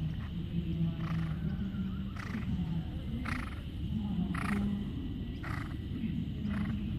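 A cantering horse blowing out in rhythm with its stride: short breathy snorts about once a second, over a steady low hum.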